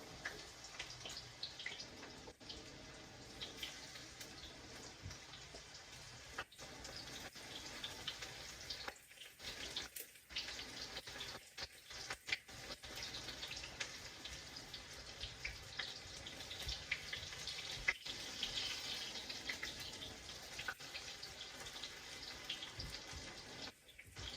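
Cornmeal-battered okra frying in oil in a cast iron skillet: a steady sizzle with many small crackles and pops.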